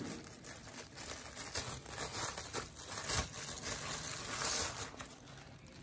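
Rustling, light scraping and small knocks of a pair of webbing-strapped sandals being handled and turned on a display stand.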